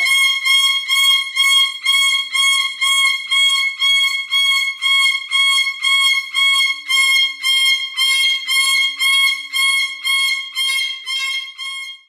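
A parrot screaming loudly and over and over, about two shrill, steady-pitched calls a second.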